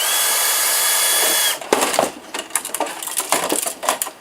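A steady, high whirring hiss for about a second and a half that cuts off suddenly, then a run of quick clicks and clatters as metal computer parts are handled.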